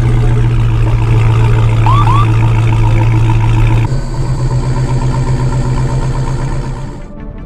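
Car engine running with a steady low drone that turns pulsing about four seconds in, then falls away near the end; two short rising chirps about two seconds in.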